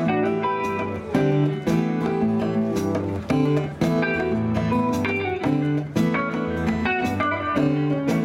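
Live band playing an instrumental passage between sung verses, led by plucked guitar chords over a steady beat.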